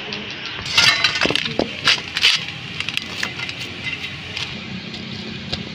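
Dough being kneaded by hand in a steel bowl: a run of irregular sharp clicks, knocks and slaps from hands and bowl. This follows a steady hiss that ends about a second in.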